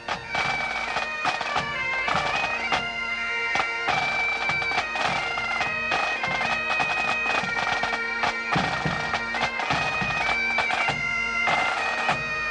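Pipe band playing: Highland bagpipes sound a melody over their steady drones, with snare drums beating along.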